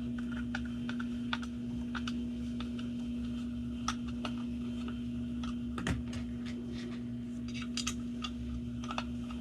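Small, irregular clicks and taps of a Torx screwdriver driving the small screws back into a plastic gauge housing, over a steady low hum.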